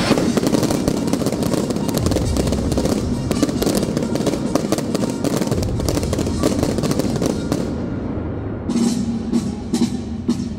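Fireworks: fountain fireworks and small aerial shells giving dense, rapid crackling and popping over music. The crackle thins out about eight seconds in and the music comes to the fore.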